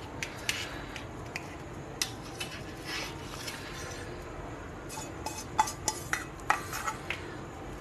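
A metal utensil scraping and clinking against a non-stick pan as a thick sweet mixture is scraped out onto a steel plate. There are a few scattered clicks at first, then a quick run of sharper metallic clinks from about five seconds in.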